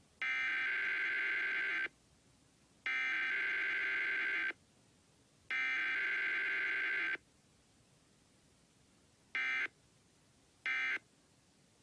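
Emergency Alert System SAME data tones from a radio station's required weekly test: three long bursts of buzzy, warbling digital header code about a second apart, then two short end-of-message bursts near the end.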